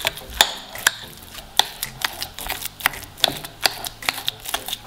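Metal spoon clinking against a glass bowl while mixing cottage cheese with eggs and sugar. Sharp, regular clicks come about two to three times a second, with soft scraping of the curd mixture between them.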